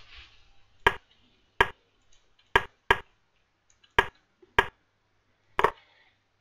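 Seven sharp clicks at irregular intervals of half a second to a second. Each is the chess client's sound for a piece being moved, as moves are played in quick succession on both sides.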